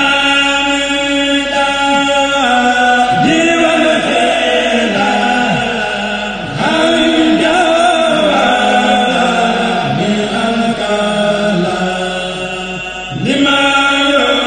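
A kourel, a group of men's voices, chanting a Mouride khassida in unison. It goes in long held melodic phrases, each starting anew about every three seconds.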